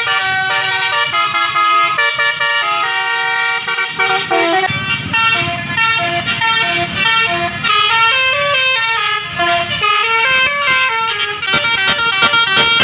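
Basuri telolet air horn on a bus playing a melody: loud horn tones that jump from pitch to pitch every fraction of a second. A low rumble joins beneath the horn about a third of the way in.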